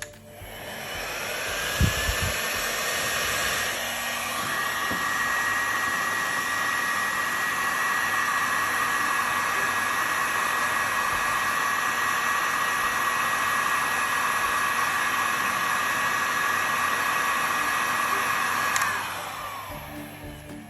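Makita HG5030K heat gun running: the fan spins up with a rising whine, then blows steadily with a high whine over the air rush, and winds down with a falling whine near the end. A short thump about two seconds in.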